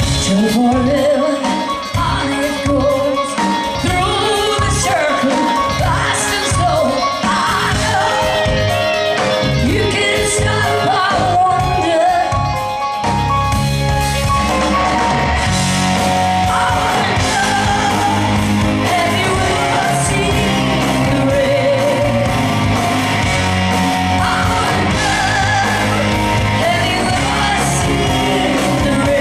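A woman singing lead with a live rock band of electric guitars and bass. The band's backing grows fuller and steadier about halfway through.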